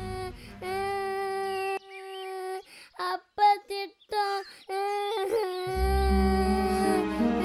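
Background film song: a woman's voice singing long, held notes with short slides between them, joined near the end by a low instrumental accompaniment.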